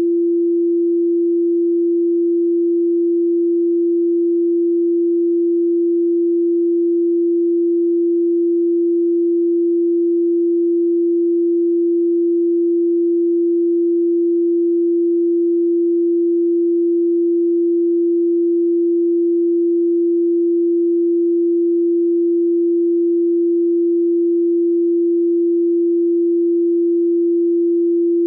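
A single steady electronic sine tone at 341.3 Hz, held unchanged at an even level.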